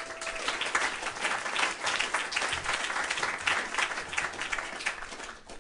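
An audience of a few dozen people applauding, the clapping dying away near the end.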